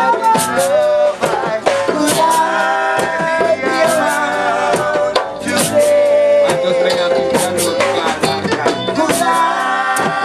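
Live acoustic reggae: a man singing, with acoustic guitar chords and hand percussion, a rattle or shaker, marking the beat.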